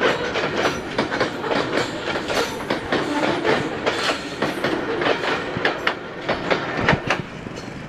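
Loaded coal freight wagons rolling past at about 31 km/h, their steel wheels clacking and knocking over the rail joints amid a steady rumble and rattle. The sound eases off near the end as the brake van passes.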